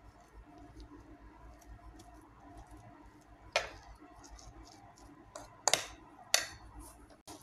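Metal fork mashing boiled, peeled potatoes on a plate, its tines clicking sharply against the plate a few times, the loudest clicks about halfway through and in the last two seconds.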